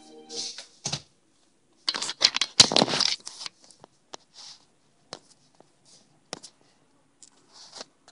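Handling noise from a phone being picked up and moved: rustling and scraping right on its microphone, with a few thumps and clicks. The noise is loudest from about two to three and a half seconds in, then thins to scattered clicks and brief rustles.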